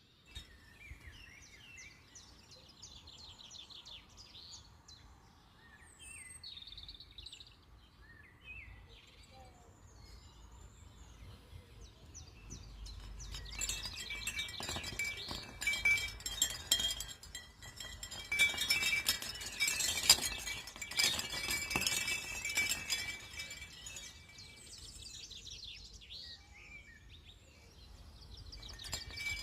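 Wild birds chirping and singing in short trills, then, about halfway through, wind chimes jangle repeatedly for roughly ten seconds, their struck tones ringing on, before the chimes die away and birdsong is left again.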